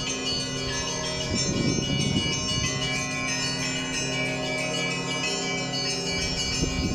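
Church bells ringing together: a dense layer of overlapping, long-ringing tones, with heavier low strokes about a second and a half in and again near the end.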